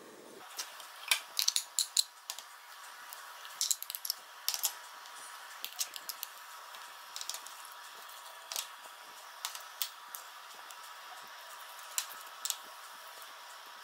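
A spoon clinking and scraping against glass bowls as chopped vegetables are scraped into semolina batter: light, irregular taps, coming in quick clusters over the first few seconds and then scattered singly.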